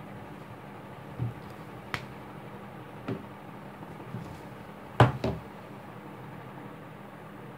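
Handling noise: a few short, soft knocks and taps over a steady low hum, the loudest a double knock about five seconds in as the camera is moved.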